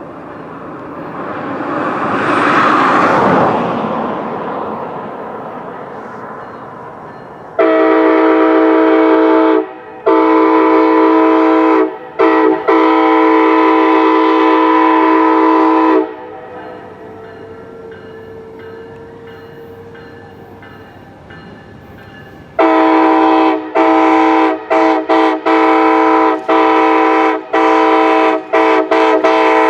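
Union Pacific SD70ACe-T4 locomotive's multi-chime air horn sounding: a few long blasts, a pause, then a rapid run of blasts broken by many short gaps near the end. Before the horn, a rushing noise swells and fades over the first few seconds.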